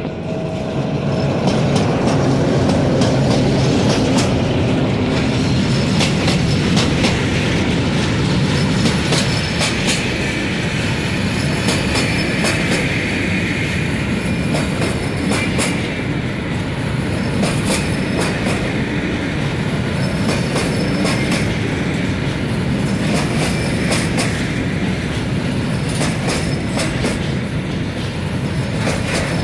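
Freight train passing at close range. The end of the locomotive's horn note fades in the first second and the locomotive's heavy rumble dominates the first few seconds. Then comes the steady rolling noise of loaded hopper wagons on the rails, with repeated clicking over rail joints and intermittent high wheel squeal.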